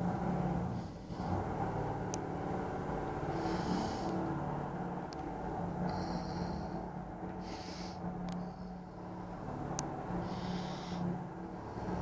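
Puppies growling and snorting as they play-fight, a continuous low raspy rumble with short hissy breaths and a few sharp clicks.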